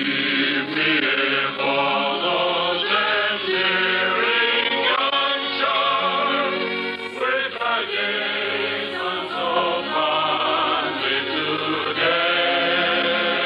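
A choir singing with instrumental accompaniment, many voices holding wavering, sustained notes together.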